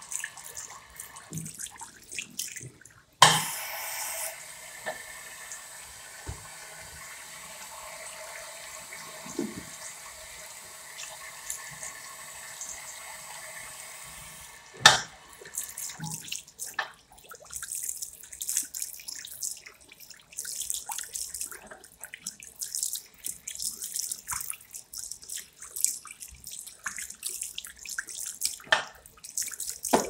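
Chrome basin tap running into a ceramic sink. A sharp knock about 3 s in starts a steady rush of water, a second knock comes midway, and from then on the water splashes and patters unevenly until the end.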